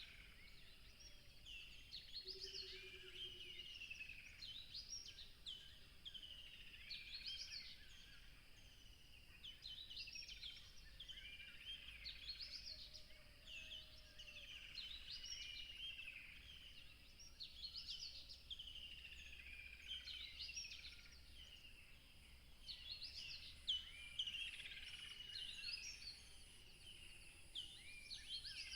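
A songbird singing the same short, quick phrase over and over, about every two and a half seconds, faint above a steady background hiss.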